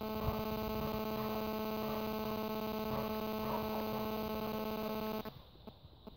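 Steady electrical hum made of several even pitched tones, which cuts off suddenly about five seconds in and leaves near quiet with a few faint low clicks.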